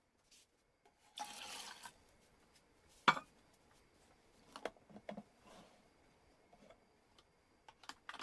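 A brief rush of noise, then a sharp click about three seconds in, followed by a few lighter clicks and knocks.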